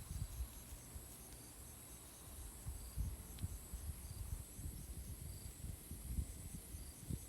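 Steady high chorus of crickets and other insects, with a regular chirping pulse among the buzzing. Irregular low rumbles of wind gusting on the microphone come and go underneath.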